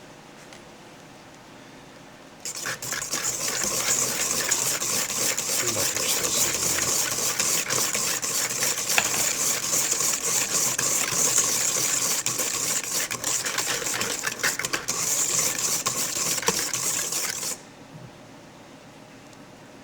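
Electric mixer whipping egg yolks and sugar toward the ribbon stage, its beaters running steadily with a fine rapid ticking. It starts about two and a half seconds in and cuts off suddenly near the end.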